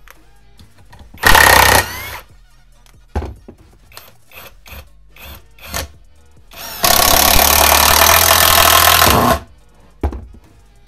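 Brushless cordless impact driver (Topshak TS-PW1, 18 V) driving screws into wood without a pilot hole, its impact mechanism hammering under load: a short half-second burst about a second in, then a steady run of about two and a half seconds near the end.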